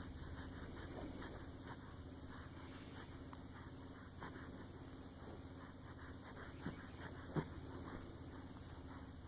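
A baby breathing and stirring, with faint scratchy rustling and two short grunts about seven seconds in, over a steady low hum.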